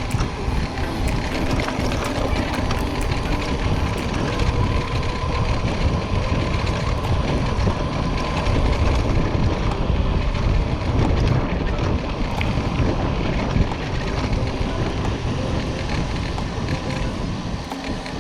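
Steady wind rush over the microphone of a camera riding along on a moving bicycle, mixed with road and passing-traffic noise.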